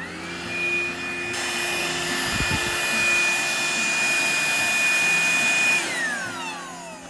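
Vacuum cleaner motor switched on: it whines up to speed within a fraction of a second and runs steadily with a high whine and rushing air for about six seconds. Near the end it is switched off and winds down in a falling whine.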